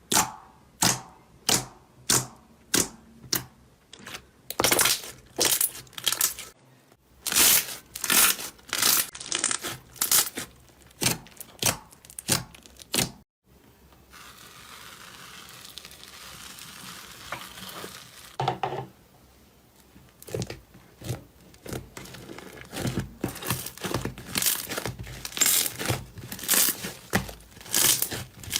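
Slime being pressed and worked by hand: a run of sharp crackling pops, about two a second at first. After a short break there are a few seconds of soft even rustling, and then the pops come again, faster and more bunched.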